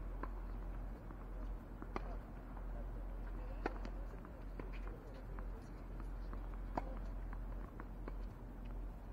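Tennis balls being bounced and struck, heard as scattered sharp pops (the clearest about two, three and a half, and seven seconds in), over a steady low rumble on the microphone.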